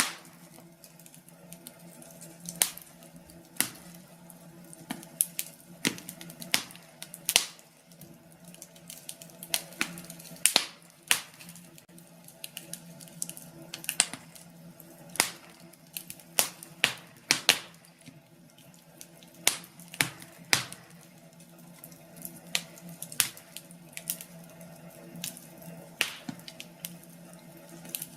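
Wood fire burning in a fireplace, crackling with irregular sharp pops and snaps over a faint low steady hum.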